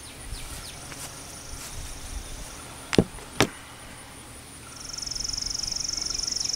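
Two sharp knocks about three seconds in as a hand-held electronic Cadweld igniter box is set down on a plywood board. From about five seconds an insect trills with a fast, even, high-pitched pulsing.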